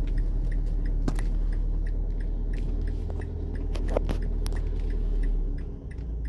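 A car cabin on the move: a steady low rumble of engine and road, with a few small rattles and a faint regular ticking about three times a second.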